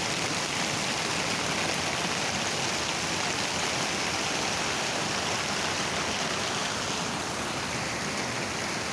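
Steady rush of flowing water from a waterfall and its stream.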